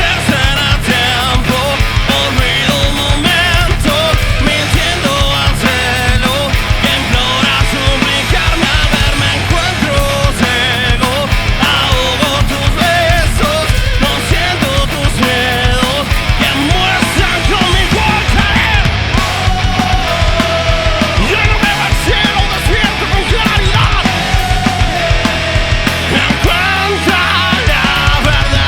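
Rock band playing live at full volume, with distorted electric guitar over bass and drums.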